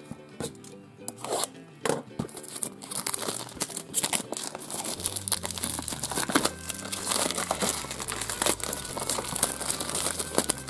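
Packaging of a Hairdorables Pets toy box being torn and crumpled by hand as it is unwrapped: a few scattered crackles at first, then near-continuous crinkling and tearing from about three seconds in.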